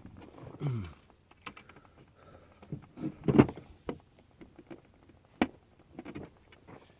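Clicks, knocks and scrapes of hard plastic and metal parts being handled as a fuel pump is forced into its pump assembly, with a louder clatter about three seconds in and a sharp click a couple of seconds later.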